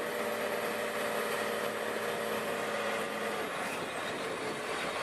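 Diesel farm tractor engine running steadily.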